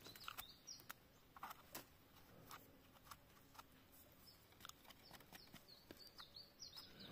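Faint, scattered clicks and scrapes of a knife blade paring the soil off a freshly picked mushroom's stem. Small birds chirp faintly behind it in short falling notes, more often near the end.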